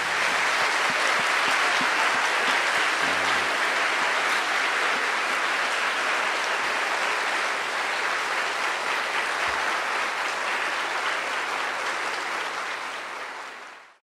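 A large church congregation applauding with steady, dense clapping, fading out abruptly at the very end.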